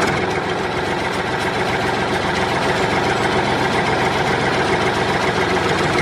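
Tractor engine idling steadily, with a fast, even low knock of its firing strokes.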